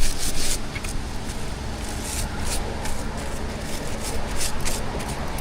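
A brush scrubbing a car's wheel rim in irregular short strokes, over a steady low hum.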